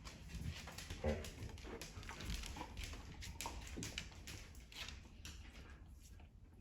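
Dogs whining and making short vocal sounds, mixed with brief clicks and scuffles.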